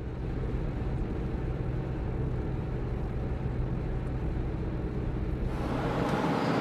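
Car driving, heard from inside the cabin: a steady low engine hum with tyre and road noise, which grows louder about five and a half seconds in.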